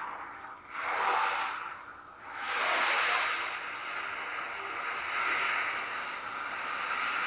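Ocean drum, a bead-filled octagonal frame drum, tilted slowly back and forth so the beads roll across the head in a surf-like hiss. It swells and fades twice in the first three seconds, then settles into a steadier wash.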